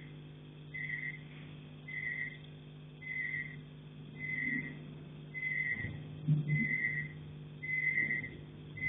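Electronic beeping from an unidentified device: a short high tone repeating about once a second, growing gradually louder, over a steady low hum. A dull thump comes about six seconds in.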